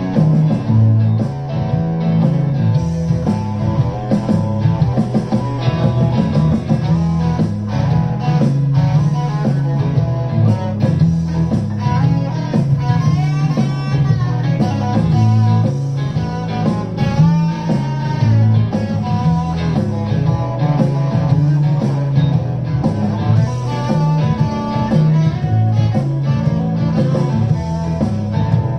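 Electric guitar played through an amplifier, freely improvised lines of notes, with bent notes gliding in pitch in the middle.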